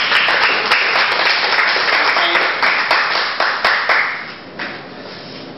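Audience applauding, fading out about four seconds in.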